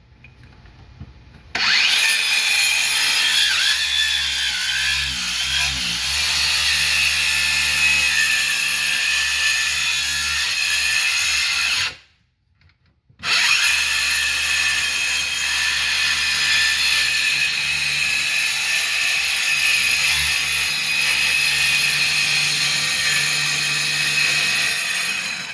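DeWalt Atomic 20V 4-1/2-inch brushless cordless circular saw (DCS571) cutting through cabinet wood with a steady high whine. It runs for about ten seconds and stops abruptly, then starts again after about a second and cuts for another twelve seconds.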